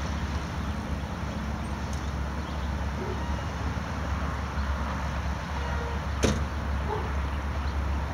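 Distant road traffic and a steady low rumble of outdoor background noise, with one sharp click about six seconds in.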